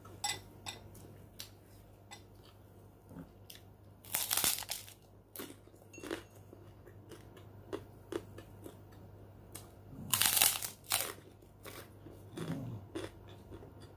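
Close-up crunching and chewing of a white Indonesian krupuk cracker, with many small crackles and two louder crunchy bites about four and ten seconds in.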